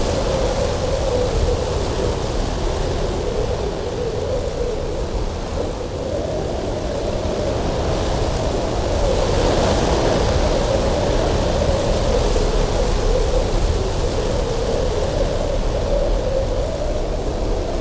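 Strong cold wind whistling with a wavering pitch over a low, steady rumble, swelling into a hissing gust about halfway through.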